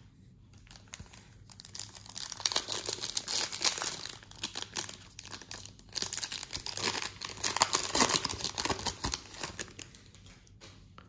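Foil wrapper of an Upper Deck MVP hockey card pack being torn open and crinkled by hand, a dense crackling that comes in two spells.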